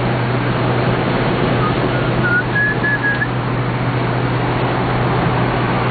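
Inside the cabin of a 1967 Opel Rekord C Caravan driving at highway speed: a steady low engine drone with road and wind noise. About two seconds in, a few short high whistled notes rise in pitch and stop.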